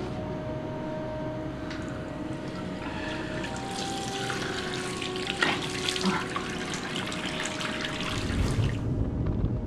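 Running water splashing for several seconds from a few seconds in, over a faint steady background; a low rumble comes in near the end.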